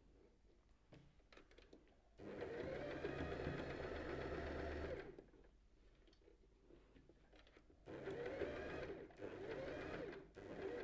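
Domestic sewing machine stitching elastic onto a knit bodysuit's leg edge, running in short bursts: one run of about three seconds a couple of seconds in, then two shorter runs near the end, with faint clicks in the pauses between.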